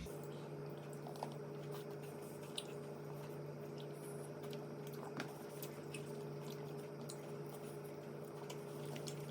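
Faint wet chewing and small mouth clicks of someone eating chicken wings, over a steady low electrical hum.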